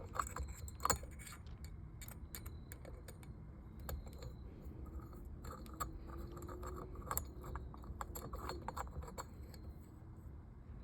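Irregular small metal clicks and clinks of a hand tool and bolts being worked while fastening a steering-wheel quick-release hub.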